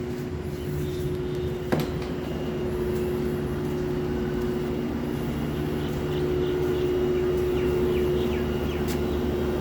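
Lloyd inverter air conditioner's outdoor unit giving a loud, steady, train-horn-like hum: one held tone over a low rumble, growing louder over the first several seconds, with a single sharp click about two seconds in. The hum is an abnormal noise fault that the owner calls deafening.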